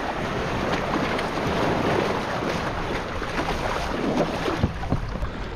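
Wind buffeting the microphone over shallow water sloshing against a kayak's hull as it is pushed off a sandy beach, with a few splashes and knocks about four seconds in as the paddler steps aboard.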